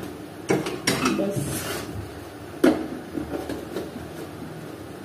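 An aluminium pressure cooker clanking on a gas stove as it is handled, with a few knocks and the loudest clank a little past halfway. A short hiss comes about a second and a half in as mustard oil is poured into the hot cooker.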